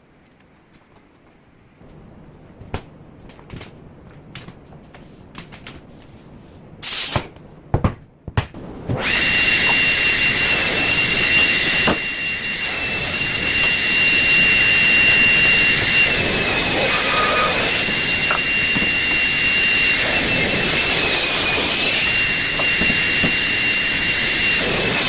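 Scattered clicks and knocks of handling, then about nine seconds in a woodworking power tool starts and runs steadily on merbau with a high whine, its pitch dipping briefly a few times as it takes load.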